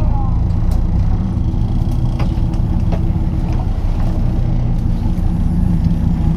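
A fishing boat's engine running steadily, a low hum, with a few faint clicks.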